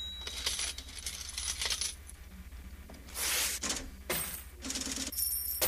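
Coins clinking and spilling in several separate bursts, with a thin metallic ring: a money sound effect.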